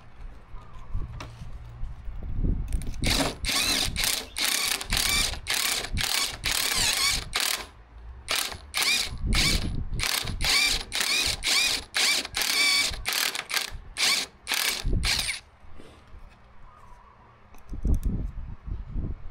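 Cordless brushless drill with a step drill bit, run in many short trigger bursts and a few longer runs from about 3 s to 15 s, cutting into the centre hole of a plywood disc to open it for a ball bearing. The motor's whine wavers up and down within each burst.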